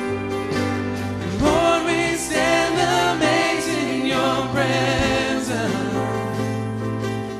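A live worship band playing, guitars over a held low note, with singing coming in about a second and a half in.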